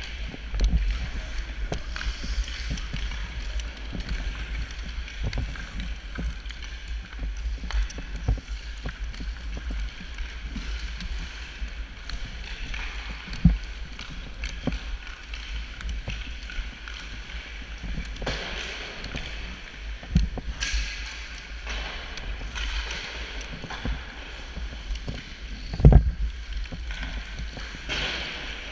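Sled hockey sled's blades gliding over the ice with a steady low rumble and scrape, broken by frequent clicks and knocks of the stick picks digging into the ice to push along. Two louder thumps, about halfway and near the end.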